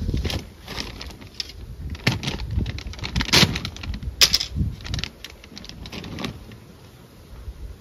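Plastic bag of floater baits crinkling and tearing open: a run of irregular rustles and clicks, with two sharper rips about halfway through.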